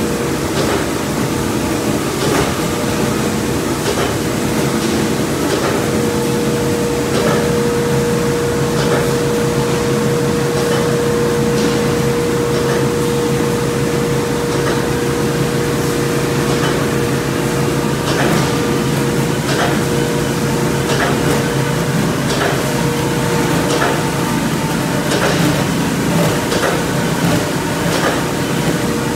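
Thermoforming machine running: a steady mechanical hum with a held mid-pitched tone, and frequent irregular clicks and knocks.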